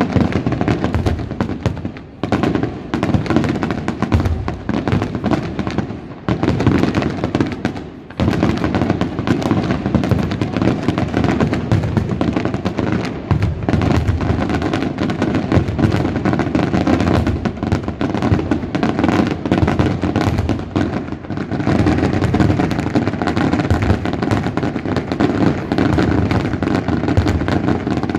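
Fireworks display going off in a dense, near-continuous barrage of bangs, with short lulls about two and eight seconds in.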